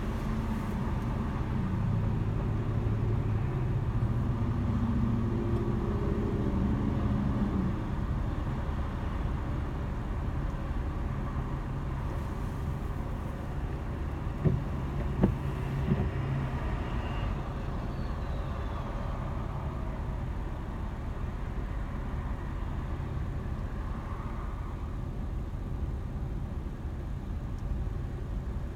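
Car driving: steady engine and road noise, the engine hum shifting in pitch over the first several seconds. Three short knocks come about halfway through.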